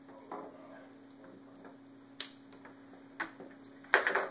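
Scattered light clicks and taps as battery alligator clips and their lead wire are handled against the back of a folding solar panel, with a louder cluster of knocks near the end.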